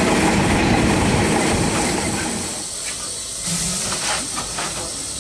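Queensland Railways A10-class steam locomotive No. 6, built by Neilson in 1865, running along the line with its wheels and train noise on the rails, heard from its tender. After a cut, the locomotive stands and hisses steam in several short bursts.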